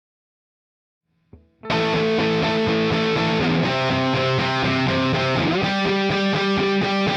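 Electric guitar played through a Fender Bassman amp: after a second and a half of dead silence it comes in abruptly with ringing chords, and it moves into a quicker rhythmic strummed pattern near the end.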